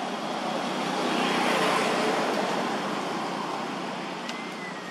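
A road vehicle passing by: a steady rush of road noise that swells to its loudest about a second and a half in and then fades away.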